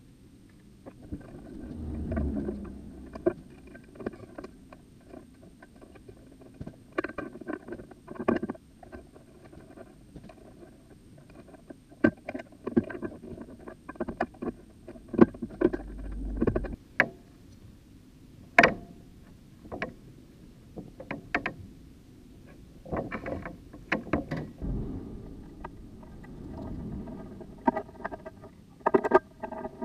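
Irregular clicks, taps and rustling of hands and tools working on electrical wiring and a light fixture overhead, with a few low thumps.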